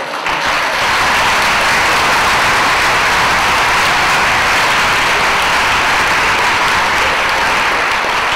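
Theatre audience applauding: dense, steady clapping that holds at full strength throughout.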